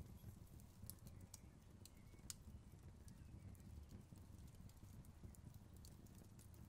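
Faint crackling of a burning wooden chair, with scattered sharp pops and snaps over a low steady rumble.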